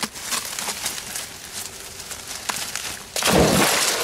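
Black Labrador retriever leaping into a pond with a heavy splash about three seconds in, the water churning on afterwards. Before it, light rustling and scattered clicks.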